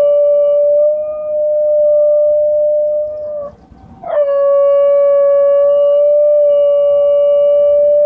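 Basenji howling in long, steady, siren-like notes. The pitch sags and breaks off about three and a half seconds in, then a new howl starts with a quick upward swoop and holds steady again.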